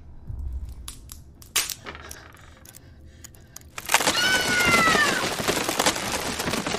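A few sharp knocks, then about four seconds in a sudden loud crash like something breaking. A high tone slides downward for about a second over the crash.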